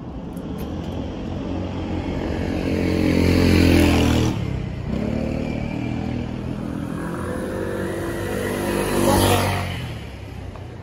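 Two motor vehicles passing close by one after the other, each engine growing louder as it approaches. The first is loudest about four seconds in and breaks off sharply. The second peaks about nine seconds in and then fades away.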